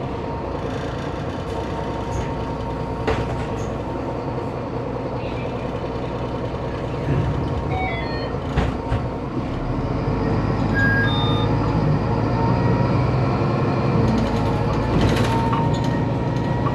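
Mercedes-Benz Citaro O530 city bus's OM906LA inline-six turbo diesel running, with a thin steady whine from the turbocharger, which the owner takes for a faulty turbo. A couple of sharp knocks come through, and the engine grows louder about ten seconds in.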